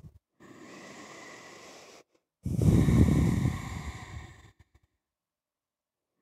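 A woman taking a slow deep breath: a soft inhale starting about half a second in, then a louder exhale about two and a half seconds in that fades out after about two seconds.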